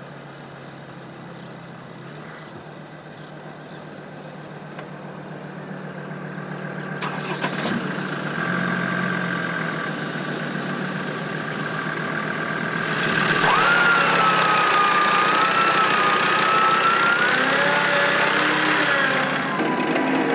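Land Rover engine idling steadily while an electric Warn winch lowers a vehicle on its line. About two-thirds of the way through, a louder wavering whine comes in for about six seconds, the winch motor running under load.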